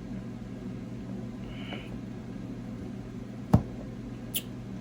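Steady hum of an electric fan running, broken by one sharp click or knock about three and a half seconds in and a fainter tick shortly after.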